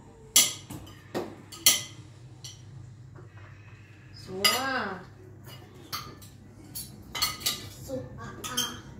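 Knives and forks clinking and scraping on dinner plates, in sharp separate clicks. About halfway through comes a short tone that rises and falls.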